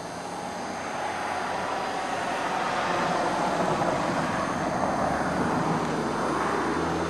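Steady rushing noise of a passing vehicle, growing louder over the first few seconds and then holding.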